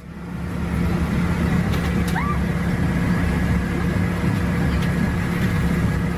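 Electric ice-shaving machine running with a steady motor hum as it shaves ice into a cup for kakigori, fading in over the first second.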